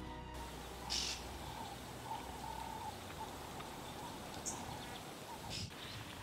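Faint outdoor ambience with brief high-pitched bird chirps, one about a second in and more about two-thirds of the way through, over a soft steady background hiss.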